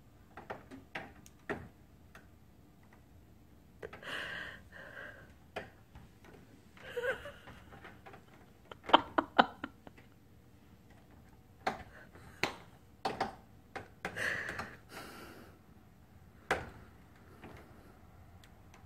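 A cat's claws catching and scraping on a window screen's mesh as it climbs, giving irregular sharp clicks and a few short scratchy rasps.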